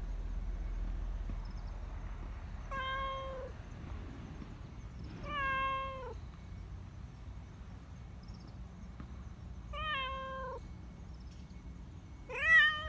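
Black Persian cat meowing four times, each call about a second long, the last one the loudest and rising in pitch. These are attention-seeking meows from a cat eager to be petted.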